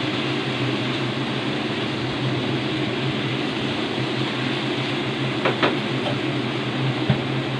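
Steady cooking noise with a low hum from beef and choysum stir-frying in a wok over a gas burner. A metal spatula clinks against the wok twice about five and a half seconds in, and a dull knock follows near the end.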